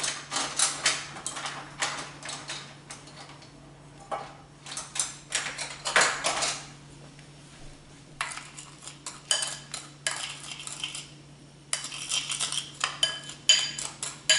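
Metal spoon clinking and scraping against a small ceramic bowl while stirring a seasoning mix of sugar, salt, garlic powder, MSG and chicken powder. The clinks come in several bouts with short pauses between them, some with a brief ringing tone.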